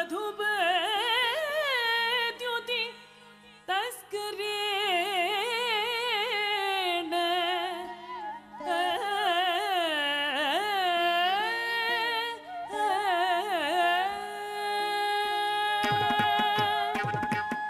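Carnatic vocal music for Kuchipudi dance: a singer's ornamented, gliding melody over a steady drone. It ends on a long held note as drum strokes come in near the end.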